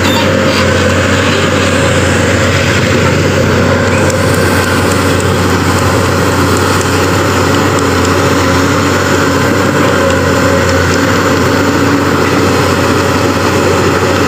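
Pindad Excava 200 crawler excavator's diesel engine running steadily under working load as the arm lifts a bucket of soil and the upper body swings, with a constant low hum.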